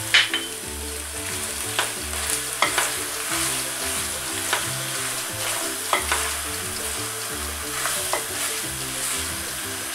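Pasta and shrimp sauce sizzling in a nonstick frying pan while it is stirred and tossed with a silicone spatula, with several short scrapes and knocks of the spatula against the pan.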